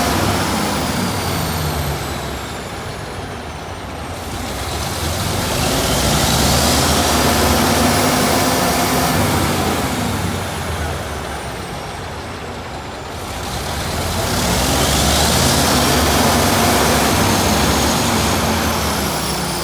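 Caterpillar D9 diesel engines of a coupled double D9 dozer being revved hard and let back, in slow waves about three times, with a turbocharger whine rising as each rev builds and falling away as it drops.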